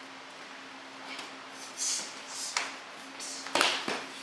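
Karate self-defense techniques being performed: a few short hissing bursts and a sharp tap, then a louder sudden hit near the end.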